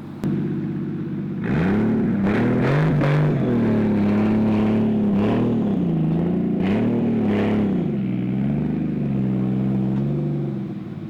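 Car engine running steadily, then revving louder from about a second and a half in, its pitch rising and falling several times.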